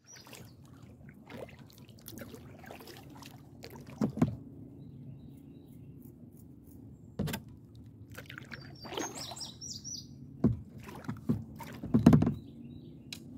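Kayak being paddled on a calm river: irregular paddle strokes, splashes and knocks, loudest a few times near the end, with a bird calling briefly about nine seconds in.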